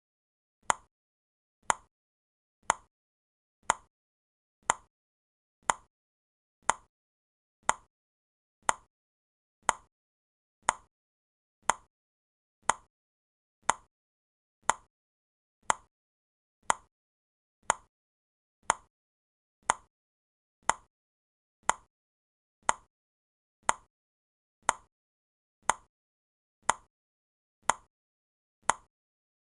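Clock ticking for a countdown timer, a steady, sharp tick about once a second with quiet between ticks.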